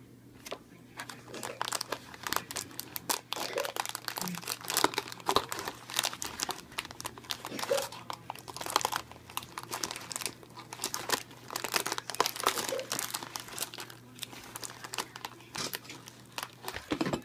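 Plastic inner wrapper of a biscuit box crinkling and tearing as it is pulled open by hand, then rustling as fingers dig into the biscuits inside: an irregular run of sharp crackles.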